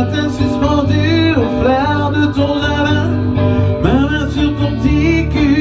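Music: a song with a voice singing over guitar and a steady bass line.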